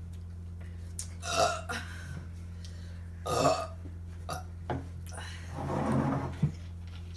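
A person burping after drinking soda: two short burps about two seconds apart, then a longer, lower burp near the end.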